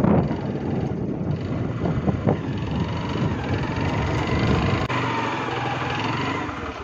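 Motorcycle engine running on the move, with wind rushing over the microphone; near the end its note falls as the bike slows.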